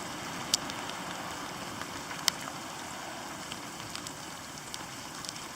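Steady rain falling, with the hiss of a SOL Fast Fire tinder cube burning in a rain puddle. A few sharp ticks stand out, about half a second and two seconds in.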